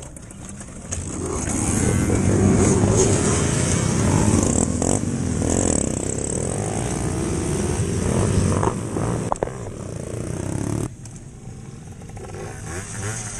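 A crowd of small motorcycle and moped engines starting and revving together at a mass race start. The noise swells about a second in and drops suddenly near the end.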